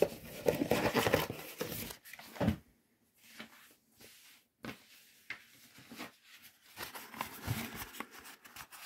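Paper rustling and crinkling as a folded invoice is handled and opened out. It is loud for the first two seconds or so, then comes in softer, scattered rustles and light clicks.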